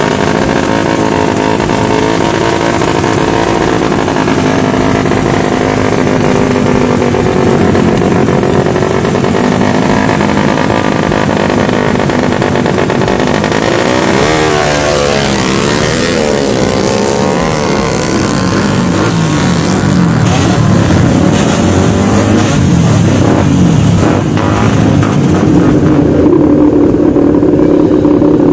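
Racing motorcycle engines running and revving, their pitch swinging up and down; around the middle two engine pitches cross each other as they rise and fall. The sound grows a little louder near the end.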